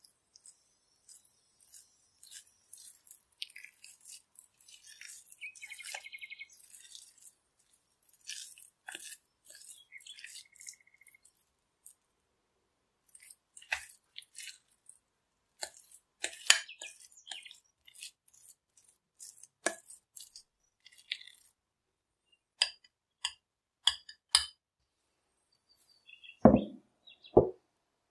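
A metal utensil clinking and scraping against a glass bowl as crumbled feta and cottage cheese are mashed together, in irregular strokes. Near the end come two heavier knocks.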